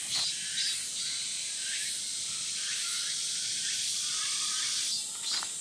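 Steady high-pitched insect drone in the summer forest, its top edge pulsing, with a few faint short chirps through it.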